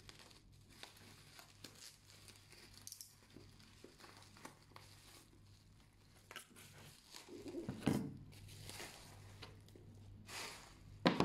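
Plastic bubble wrap crinkling and tearing as it is slit with a box cutter and pulled open by hand, in a run of small crackles, with a louder rustle about eight seconds in as the books are slid out of the wrap.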